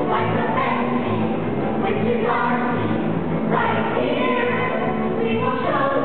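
A woman and a man singing into microphones over a live orchestra with cellos, a show tune with a steady low beat about twice a second.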